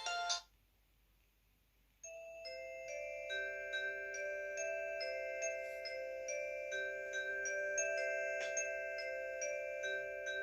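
Built-in polyphonic ringtones of a Mobistel EL420 Dual mobile phone being previewed: one tune cuts off just after the start, and after a short silence a new tune of chiming, bell-like notes over held chord tones begins about two seconds in and keeps playing.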